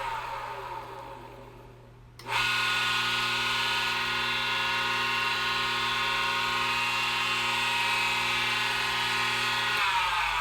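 Electric power-tool motor winding down with a falling whine that fades out about two seconds in, then switched on abruptly and running at a steady pitch, and starting to coast down again near the end.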